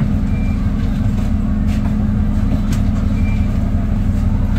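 Diesel engine of an ADL Enviro 400 double-decker bus idling steadily, heard from inside the bus. Two short high beeps about three seconds apart and a few light clicks sit over the engine.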